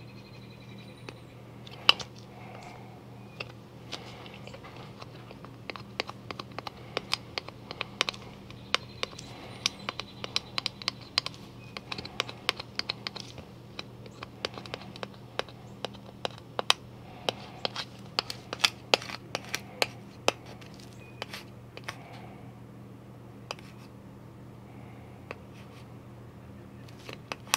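Plastic scraper card rubbing and clicking over vinyl transfer paper on a plastic disc golf disc as air bubbles are pressed out: a run of irregular sharp clicks and scratches, thickest in the middle, over a steady low hum.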